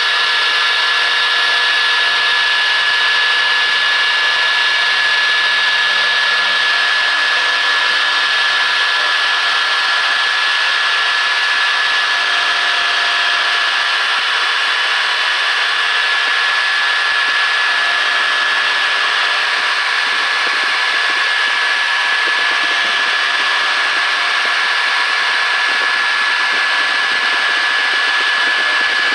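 Small CNC milling machine cutting aluminum with a small end mill: the spindle runs steadily with a high, even whine over a constant whir of cutting. Fainter lower hums come and go every few seconds as the cut moves.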